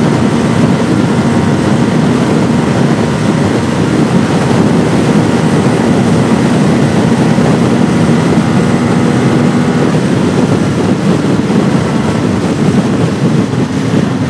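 CFMoto 250NK's single-cylinder engine running hard at high revs, with strong wind buffeting the microphone at about 120–130 km/h. The sound is loud and steady, with no gear change.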